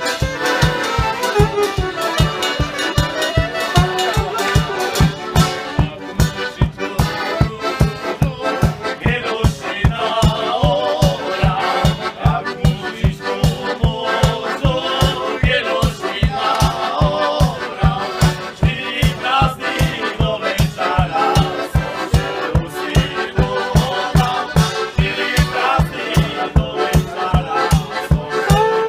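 Folk band playing a lively tune: two accordions and a saxophone over a bass drum with a cymbal mounted on top, which keeps a steady beat of about two strokes a second.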